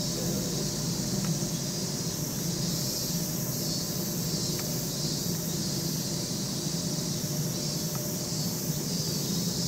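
Steady background ambience: a high, evenly pulsing chirring of insects, about two pulses a second, over a constant low hum.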